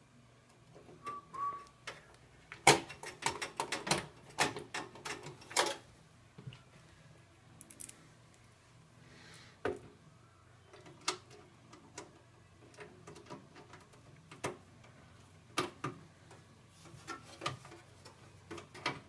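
Sharp clicks, taps and knocks of a motherboard and its screws being handled and fitted into a PC case, a quick flurry of them a few seconds in, then single clicks every second or two.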